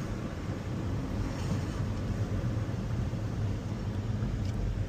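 Steady low rumble inside a moving Nissan Altima, with a little grind sound from its CVT transmission, which is failing: the primary pulley pressure reads 0 psi and is not building.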